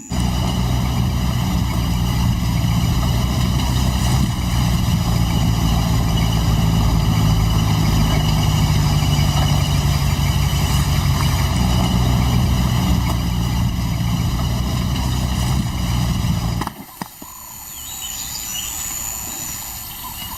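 A motor vehicle's engine running at a steady idle, a low even hum that cuts off suddenly about 17 seconds in. A much quieter background is left after it.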